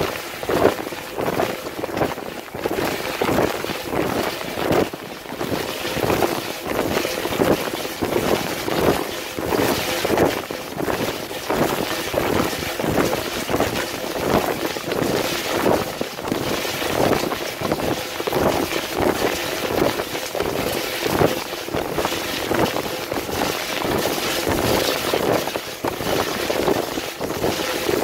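Miele G 2225 SCi dishwasher mid-wash, heard from inside the tub: jets of water from the spray arms pelting the walls, racks and camera in a dense, uneven splashing, with a faint steady hum underneath.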